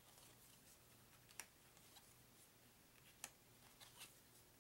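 A few faint, sharp clicks of playing cards being handled and flipped over on a deck, the two clearest about two seconds apart, over near silence.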